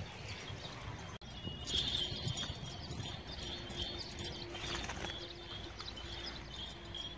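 Kangal dog chewing and tearing at raw tripe, in short irregular crunching clicks.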